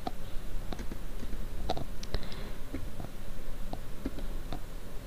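Room tone: a steady low rumble with a scattering of short, sharp clicks.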